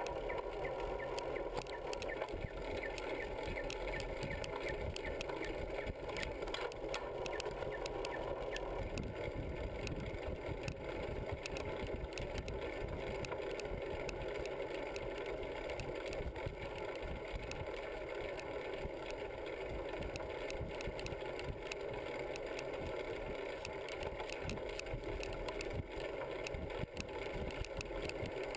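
Riding noise from a bicycle-mounted camera: steady wind on the microphone and tyres rolling on the road, with the bike's metal rack and frame rattling and clicking over bumps. A deeper rumble grows stronger about nine seconds in.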